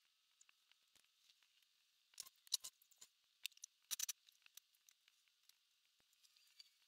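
Faint scattered clicks and taps of a person moving about and handling things, in two brief clusters about two and four seconds in, against near silence.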